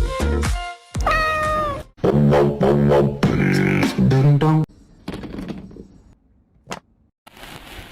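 A cat meowing, one high call with a falling end about a second in, over background music; the second half is quieter, with softer noises and a single click.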